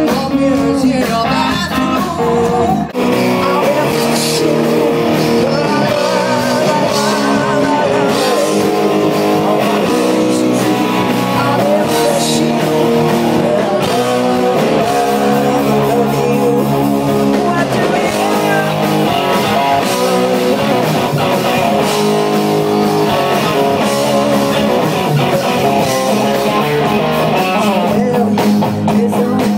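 Live rock band playing loud: electric guitars and drum kit, with a woman singing over them. There is a short break about three seconds in, where the recording cuts to another part of the set.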